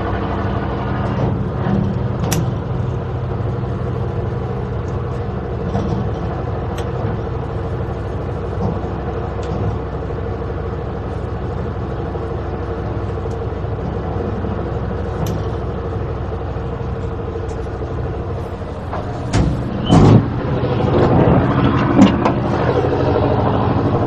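Tugboat machinery running steadily, a low even hum. About twenty seconds in come two loud thumps close together, then a louder, busier stretch with a sharp knock near the end.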